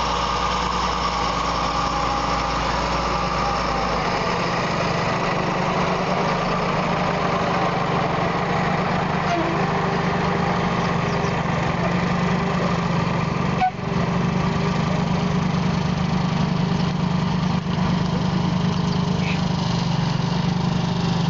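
Semi-truck's diesel engine running steadily as it hauls an oversize concrete girder load at low speed, with a short break in the sound about two-thirds of the way through.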